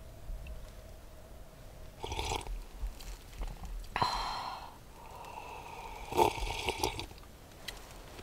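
Rustling and clatter of camp dinner things being handled and unpacked, in three short bouts.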